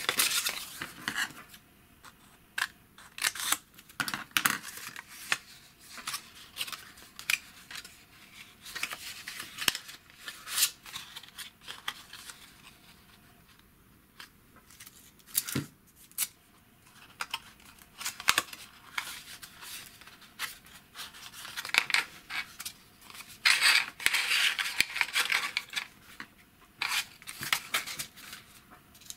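Thick graph paper being folded and creased by hand: irregular crackles, rustles and sharp little clicks as the paper is bent and pressed flat, with a longer, denser stretch of rustling about two-thirds of the way through.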